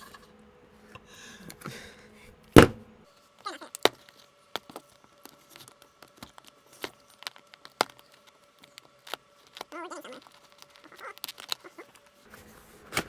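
Cardboard keyboard box being cut and opened with a knife: packing tape tearing and cardboard and plastic packaging crackling, with one loud sharp snap about two and a half seconds in, then many scattered clicks and crinkles.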